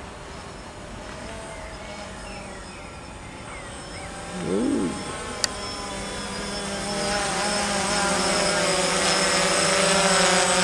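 DJI Phantom quadcopter's electric motors and propellers humming steadily in flight, growing louder over the second half as it comes closer. A short wavering sound comes about four and a half seconds in, then a single sharp click.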